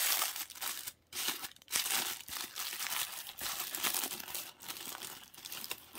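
Thin crinkly plastic accessory bag rustling and crackling as hands open it and rummage through it, with a couple of brief pauses about a second in.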